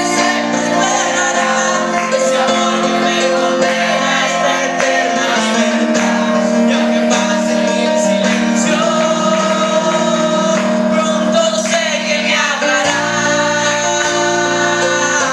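A singer performing a Christian worship song over instrumental accompaniment, holding long sustained notes.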